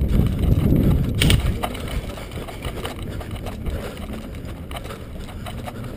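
Footsteps and jostling movement over rough, debris-strewn ground, loudest in the first second and a half, then quieter shuffling with a few sharp snaps and clicks.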